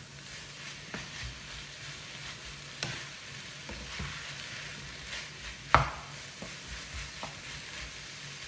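Chicken, chorizo and peppers sizzling in a non-stick frying pan while a slotted spatula stirs them, scraping and tapping against the pan. A sharp knock of the spatula on the pan comes about six seconds in.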